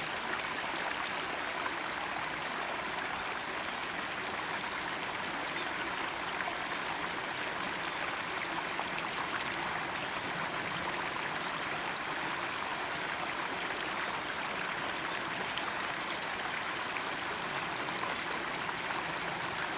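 Steady rush of running water, flowing through a rocky moat.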